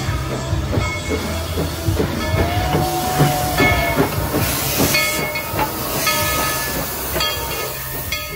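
Narrow-gauge steam locomotive rolling slowly past close by, hissing steam and clanking from its rods and running gear. The hiss grows louder about halfway through.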